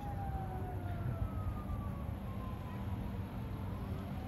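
An emergency-vehicle siren wailing, its pitch gliding slowly down and starting to rise again near the end, over a steady low rumble.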